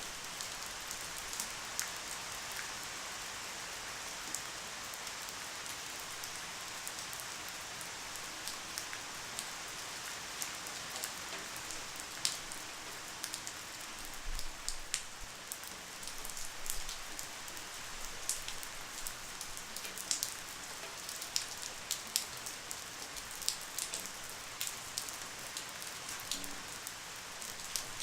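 Light, steady rain falling with a soft hiss, with many individual drops ticking sharply on a nearby surface.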